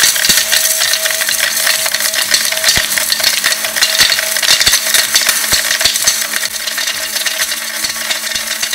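Atomberg mixer grinder running, grinding hard roasted turmeric lumps into powder in its steel jar: a loud, continuous rattle of the dry pieces clattering against the jar and blades, over a steady motor hum.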